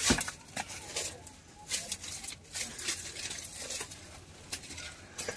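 Dry sal leaves rustling and crackling as a stack of them is handled, in irregular crisp crackles.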